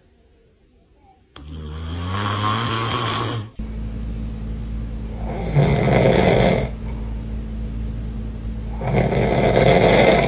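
A man snoring in his sleep: three long snores about three and a half seconds apart, the first starting after a moment of near silence.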